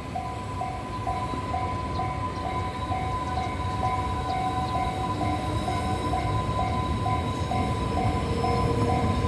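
Level crossing warning bell ringing in a steady repeating ding about twice a second, over the low rumble of an EH500 electric freight locomotive's train that grows louder as it nears the crossing.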